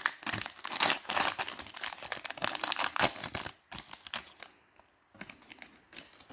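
Wrapper of a 2020 NFL Optic trading-card pack crinkling and tearing as it is ripped open. Then a few faint clicks as the cards are handled, from about three and a half seconds in.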